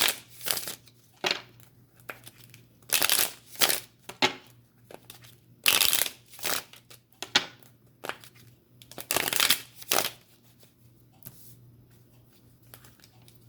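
A deck of cards being shuffled and handled by hand: short, irregular bursts of rustling and flicking with pauses between, about a dozen over the stretch.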